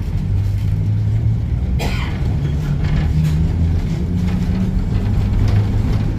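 Electric streetcar running on its track, a low motor and gear hum stepping up and down in pitch, with a brief squeal that falls in pitch about two seconds in.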